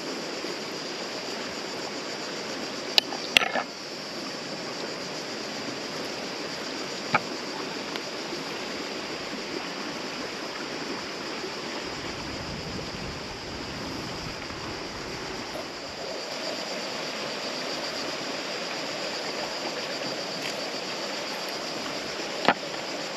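Steady rush of flowing river water. A few sharp clicks break in, twice about three seconds in, once around seven seconds and once near the end.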